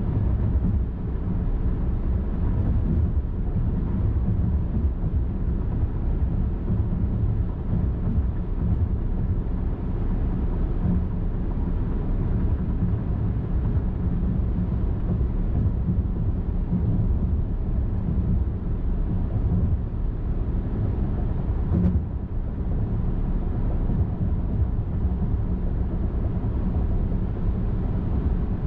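Car driving steadily along a highway, with a constant low rumble of tyres and engine. A single short click sounds about 22 seconds in.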